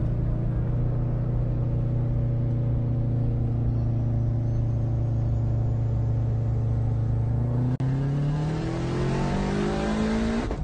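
Subaru WRX with a swapped-in STI turbocharged flat-four, heard from inside the cabin: the engine holds a steady note, drops out briefly about eight seconds in, then its revs climb quickly under hard acceleration.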